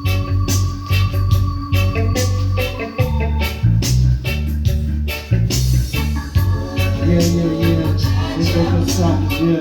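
Reggae music with a heavy bass line and a steady drumbeat; a singing voice comes in over the second half.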